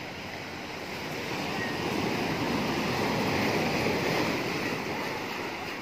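Sea surf breaking and washing over shoreline boulders: a steady rush of water that swells louder as a wave comes in about two seconds in, then eases off near the end.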